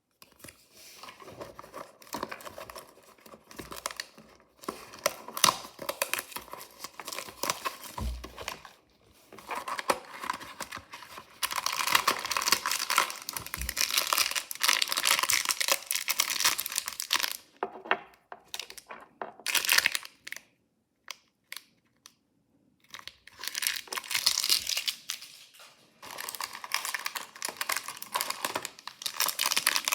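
Mystery toy packaging crinkling and tearing as it is handled and opened by hand, in irregular spells of dense crackle. The longest, loudest spell runs through the middle, and there is a brief lull about two-thirds of the way in.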